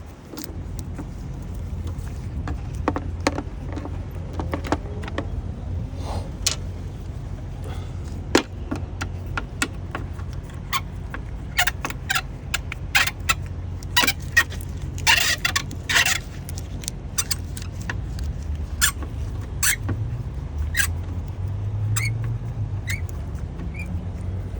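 Hand tools working on a car engine: scattered metallic clicks and taps, with a quick run of ratcheting about two-thirds of the way through, as a Torx T25 bit loosens the bolts on a timing solenoid. A steady low hum runs underneath.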